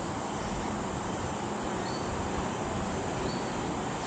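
Steady rainforest ambience, with a short high chirp that comes back every second or two.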